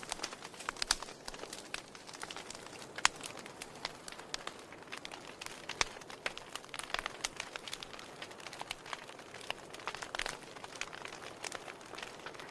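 Wood fire burning in a fireplace: logs crackling and popping irregularly over a steady hiss, with sharper pops about one and three seconds in.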